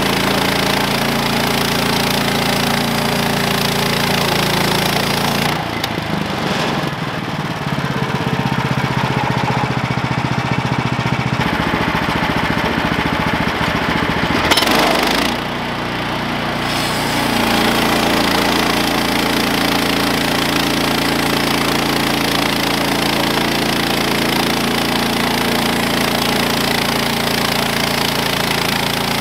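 Woodland Mills HM130 portable bandsaw mill running, its gasoline engine under steady load as the band blade cuts through an oak log. About six seconds in, the sound changes and turns duller for several seconds, ending in a short loud knock. After a brief dip, the steady cutting sound returns.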